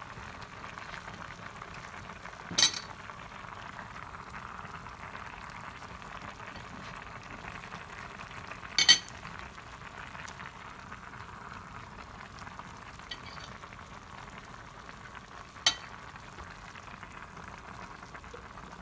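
Doenjang jjigae boiling in a Korean earthenware pot (ttukbaegi), a steady bubbling hiss. Three short, sharp clicks come several seconds apart.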